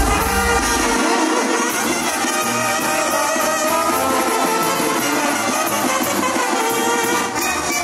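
Brass band music playing, with trumpets and trombones carrying sustained chords.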